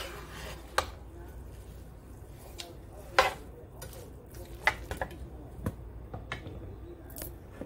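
A metal spoon scraping and knocking against a square copper-coloured pan as stir-fried glass noodles are tossed, with about seven irregular clinks, the loudest about three seconds in.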